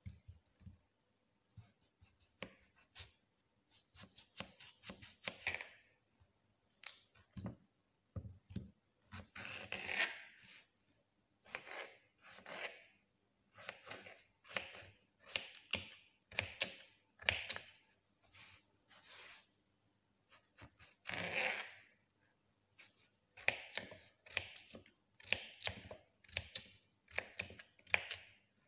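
Kitchen knife cutting a raw peeled potato into small pieces: repeated short, crisp slicing strokes in irregular bursts, with a couple of dull knocks about a third of the way in.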